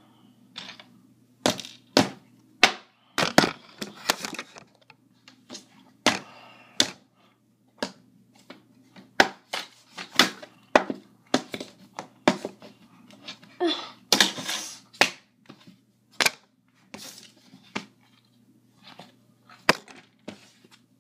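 A phone being smashed against a tabletop by hand: a string of sharp knocks and cracks at irregular intervals, some coming in quick clusters.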